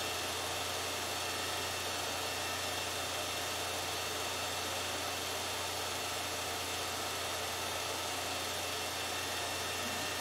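Movie projector running: a steady low motor hum with an even hiss over it.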